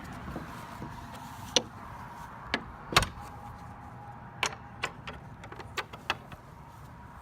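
Traffic on a busy road, easing off over the first second, with a scatter of sharp clicks. The loudest click comes about three seconds in.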